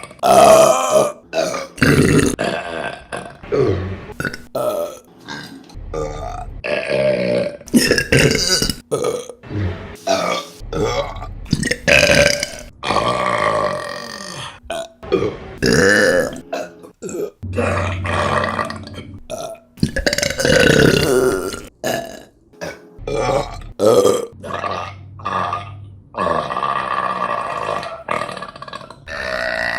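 A rapid series of women's burps from one clip after another. Some are short and some are long and drawn out, with sudden jumps between them.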